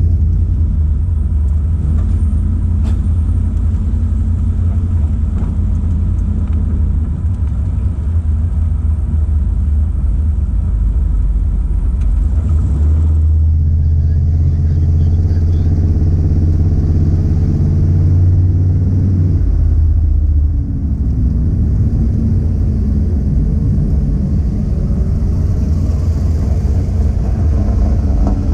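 Car engine running hard with a deep, steady drone, then revving up and down through the second half as its pitch rises and falls, with a brief drop about two-thirds of the way in.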